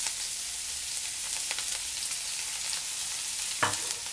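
Freshly added diced bacon frying in hot lard in an aluminium pan: a steady high sizzle with scattered small pops, and one sharper click near the end.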